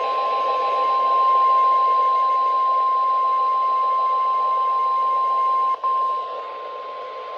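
NOAA Weather Radio 1050 Hz warning alarm tone: one steady high-pitched tone over radio static, the signal that a warning message follows. It breaks off for an instant about six seconds in and comes back quieter.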